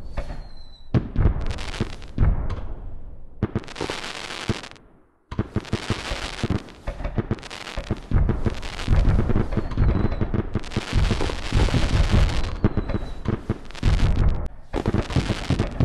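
Aerial firework shells bursting in a dense, continuous barrage of booms and crackling. There is a brief gap about five seconds in, then the barrage starts again.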